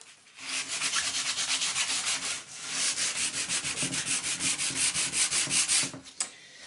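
A sheet of sandpaper rubbed by hand over the old varnished wooden panel of a cupboard door, in quick back-and-forth strokes, several a second. There is a short pause about two and a half seconds in, and it stops about six seconds in.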